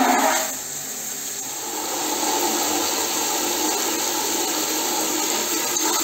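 Water spraying from a hand-held shower sprayer into the plastic water tank of a water-filter vacuum cleaner, filling it. The splashing is loudest in the first half second as the spray hits the empty tank, then settles into a steady hiss as the water rises.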